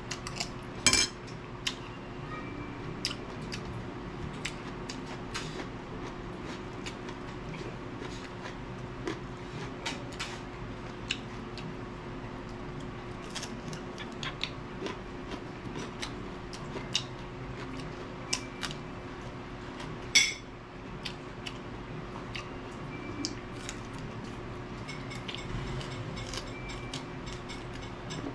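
Eating utensils clicking and scraping against a plate or bowl in short, irregular clinks, with two louder knocks about a second in and about twenty seconds in, over a steady low hum.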